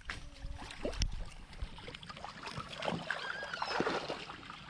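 Leashed otters moving and splashing in shallow water at a muddy bank, with scattered small clicks. A few short high chirps come in the second half.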